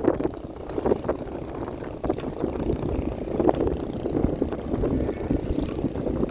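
Strong gusty wind buffeting the microphone, an uneven rumble with irregular knocks.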